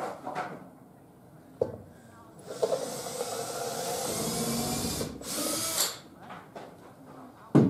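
Cordless drill boring a pilot hole through plywood with a small bit: the motor runs steadily with a whine for about three seconds from about two and a half seconds in, lets off briefly and spins up again. A sharp knock near the end is the loudest sound.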